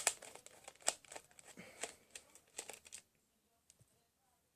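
Irregular clicks and light rattles of a plastic toy's parts being handled, stopping about three seconds in.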